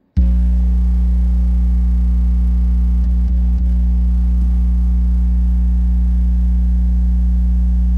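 Transformer driven by an audio amplifier with a sine-wave signal, humming loudly and steadily with a buzzy stack of overtones. The hum switches on abruptly and cuts off near the end.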